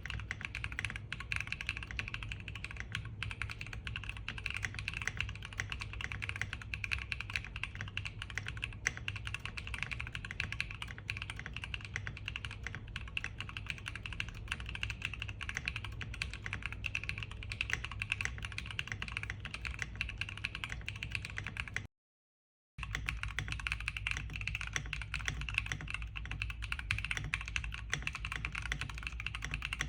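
Continuous fast typing on a Neo70 aluminium mechanical keyboard with factory-lubed Neo white switches and Cherry-profile PBT keycaps: a dense, even stream of key clacks. About 22 seconds in the sound cuts out for a moment, then the typing picks up again.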